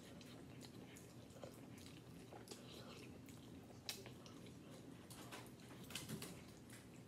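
Faint eating sounds: noodles slurped off a fork and chewed, with scattered short wet smacks and clicks, a sharper one about four seconds in and a couple around six seconds, over a low steady room hum.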